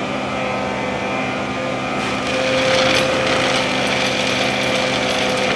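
Hydrovac (hydro-excavation) truck running its industrial vacuum, a steady mechanical drone. Gravel and debris rattle up the suction pipe, growing louder and harsher from about two seconds in.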